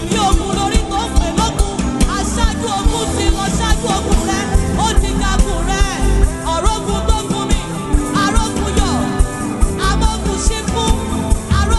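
Nigerian gospel music playing: a full band with a steady, driving beat.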